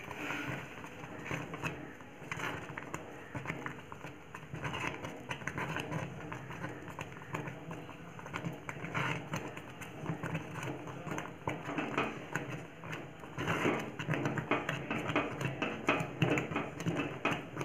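Wooden spatula stirring thick semolina-coconut halwa in a metal pot, a steady run of irregular knocks and scrapes against the pot, getting busier and louder about two-thirds of the way through.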